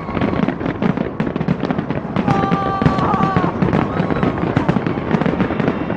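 Aerial fireworks display: a rapid, continuous run of bangs and crackles from bursting shells over a low rumble, with crowd voices underneath. About two seconds in, a held tone like a horn sounds for about a second.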